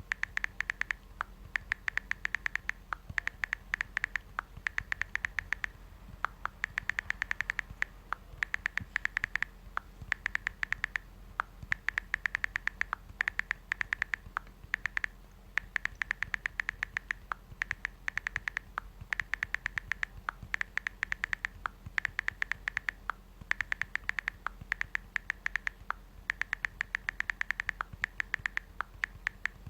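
iPhone texting sound: quick runs of keyboard tap clicks as a message is typed, each run lasting about a second with brief pauses between them.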